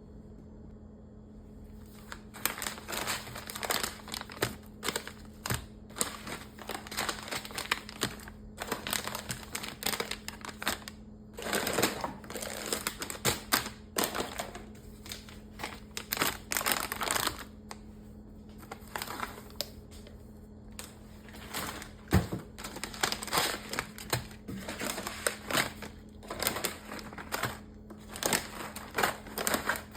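Grocery packaging being handled: crinkling pouches and boxes tapped and set down on a hard surface, in irregular clicks and rustles, over a faint steady hum.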